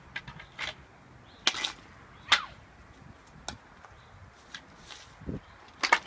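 Street hockey sticks clacking and slapping on asphalt: a handful of sharp knocks at irregular intervals, the loudest about two seconds in and another cluster near the end.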